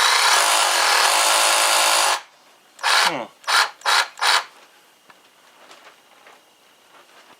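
Ryobi 18V ONE+ PCL515B cordless reciprocating saw running free at full trigger for about two seconds, then four quick trigger pulls that each rev it briefly and let it wind down.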